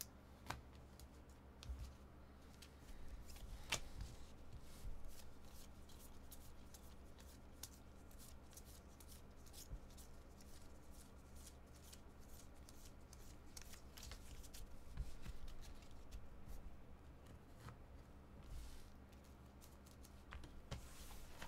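Faint handling of a stack of glossy chrome baseball cards: cards sliding and flicking against one another as they are sorted, with scattered small clicks, over a faint steady low hum.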